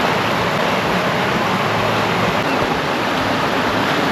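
Steady rush of water pouring down a rock waterslide and waterfall, an even noise with no breaks.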